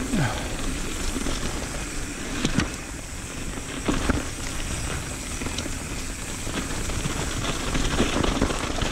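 Mountain bike descending a dirt singletrack: a steady rush of wind over the camera microphone with the tyres rolling and the bike rattling over rough ground, and a few sharp knocks as it hits bumps.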